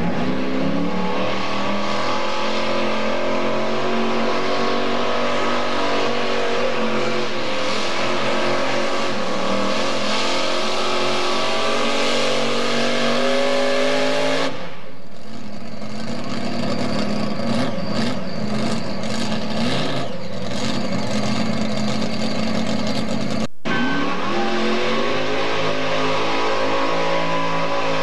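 Mini modified pulling tractor's fuel-injected engine running at high revs under load while pulling the sled, its pitch climbing slowly. About halfway through the high note drops away into rougher running with crackles. After an abrupt break a few seconds before the end, another engine revs up.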